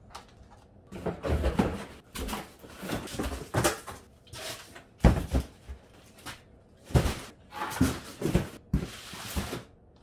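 Empty cardboard boxes being handled and gathered up: irregular rustling scrapes of cardboard with several sharp thumps.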